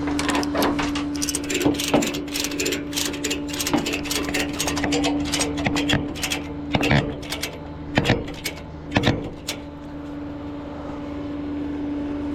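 Tow chain and hook hardware being rigged: rapid metallic clicking and clinking for the first several seconds, then a few louder clanks around eight and nine seconds in. A steady low hum runs underneath.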